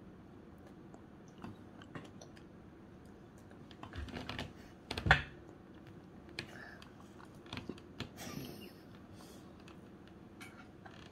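Scattered light clicks and taps of plastic chopsticks and a plastic lunch box while a child eats, with a single louder knock about five seconds in.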